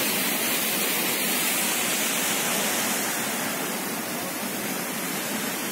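Steady rush of flowing water, an even hiss with no separate splashes or knocks, easing a little about halfway through.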